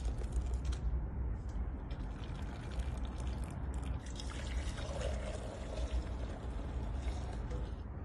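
Milky spiced karak tea poured from a pot through a mesh strainer into a steel bowl: a continuous splashing pour of liquid, with a steady low rumble underneath.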